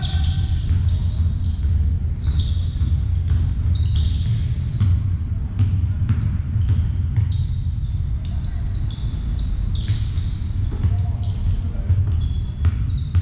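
Basketball in play: rubber-soled sneakers squeaking on the court floor in many short high squeaks, with the ball bouncing and thudding, over a steady low rumble.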